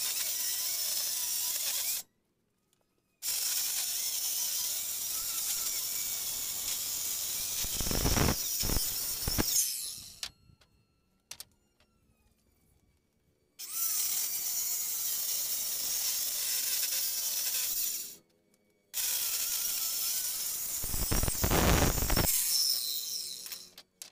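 Corded handheld electric circular saw ripping long wooden boards lengthwise, running in long stretches with short breaks. Twice the cut grows louder and heavier as the blade bites through the wood.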